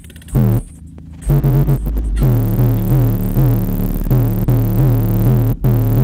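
Loud, bass-heavy electronic music played through a car audio system's subwoofers, a repeating bass line dominating. It drops away for about the first second, then runs on steadily.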